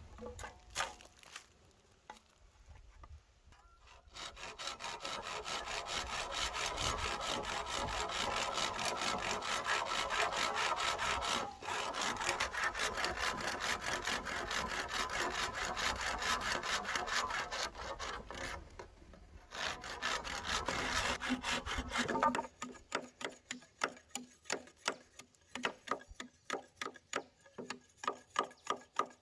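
Hand saw cutting bamboo in quick, even strokes, with short breaks. In the last several seconds it gives way to a sparser run of sharp ticks, about two a second.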